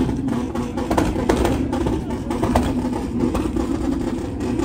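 Car engine running steadily, with voices in the background.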